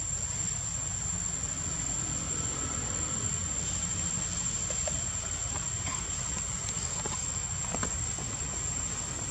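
Steady outdoor ambience: a continuous high-pitched insect drone over a low steady rumble, with a few faint clicks.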